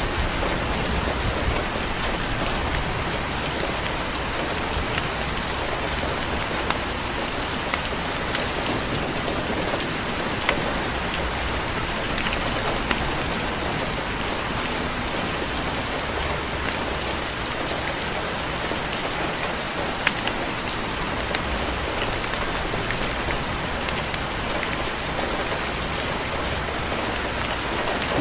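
Steady rain falling on a porch, an even hiss with scattered sharper drop ticks.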